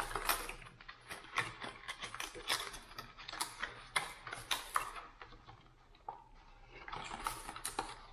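Hard-plastic crankbaits and their plastic packaging being handled: a run of irregular small clicks and light rattles, which thin out about six seconds in and pick up again near the end.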